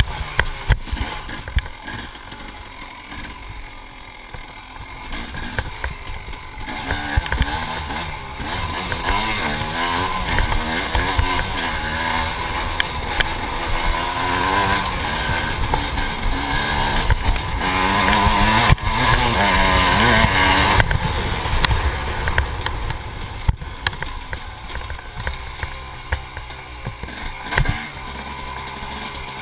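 KTM dirt bike engine running under way, revving up and down through the gears; it builds in the middle, is loudest a little past halfway, and eases off near the end.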